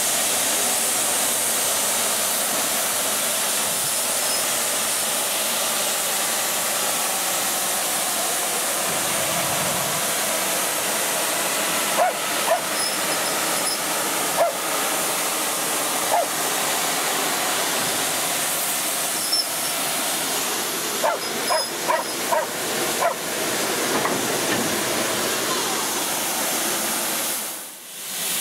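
Steam locomotive 73050 'City of Peterborough', a BR Standard Class 5, standing with steam hissing steadily from it. A dog gives several short yelps over it in the second half.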